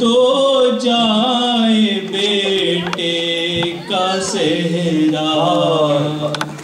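A man chanting an Urdu noha, a Muharram lament, in long, drawn-out sung phrases.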